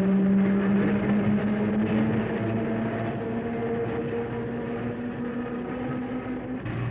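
Pacific Electric Red Car, an electric interurban railcar, running along the line: a steady motor hum over running noise, rising slightly in pitch about two seconds in and dropping to a lower hum near the end.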